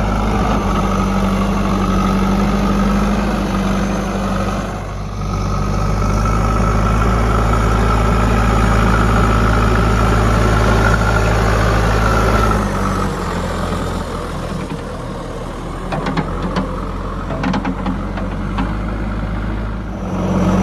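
JCB 3DX backhoe loader's diesel engine running, with a steady high whine over the engine hum. The engine eases off about twelve seconds in, and a run of knocks and clatters follows near the end.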